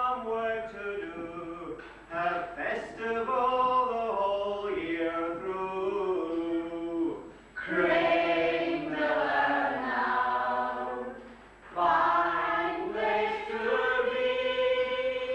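A community choir singing together in long phrases, with short breaks between them.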